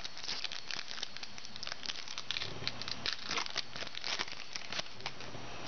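Crinkling plastic wrapper of a 2009 Upper Deck Heroes football card pack, torn open and worked off the cards by hand: a run of irregular crackles all the way through.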